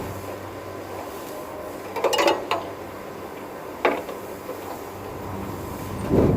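Metal tools and fittings clinking and knocking during work on the air-conditioner's copper pipework: a quick cluster of clinks about two seconds in, a single sharp knock near four seconds, and a heavier knock near the end, over a steady background hum.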